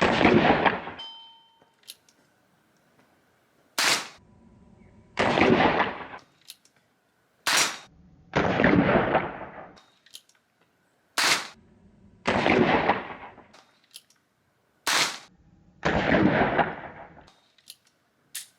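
.22 LR gunshots fired at a steady pace, five sharp cracks about every three and a half to four seconds. Each crack is followed about a second later by a longer rushing noise that fades out.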